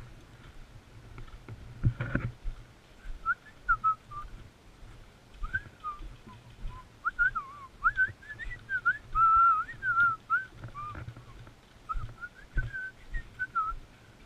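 A person whistling a wandering tune in short phrases, the notes sliding up and down. Low handling thumps sound under it, with one sharp knock about two seconds in.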